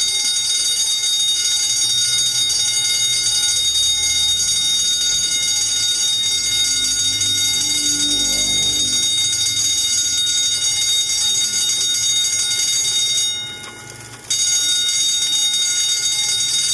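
Fire alarm bell ringing continuously at a steady level. It cuts out for about a second near the end, then rings on.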